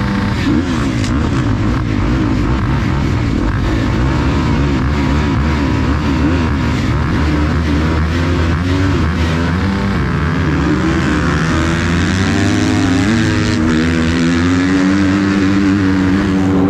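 Motocross bike engine running hard under race riding, its pitch rising and falling again and again with throttle and gear changes. Near the end it holds a steadier, higher note.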